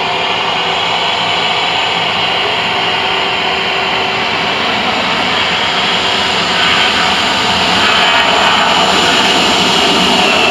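Airbus A321 jet airliner's twin engines at takeoff power through the takeoff roll and lift-off: a steady jet engine noise with a strong hiss, growing louder about seven seconds in as the aircraft climbs past.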